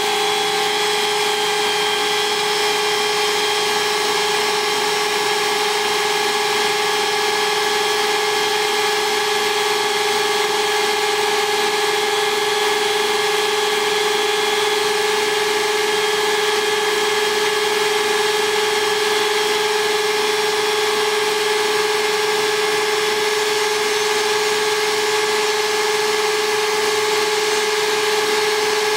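Power drill motors running steadily under load, driving twist drill bits in a run-to-failure test; a constant high whine with no break.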